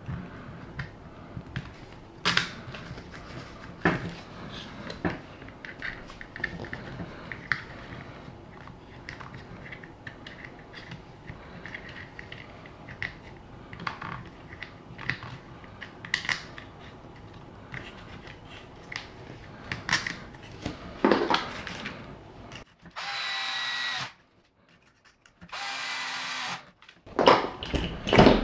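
Small clicks and knocks of parts and tools being handled while shocks and links are screwed onto an RC crawler's plastic chassis. Near the end a cordless drill-driver runs twice, about a second each time, driving screws in.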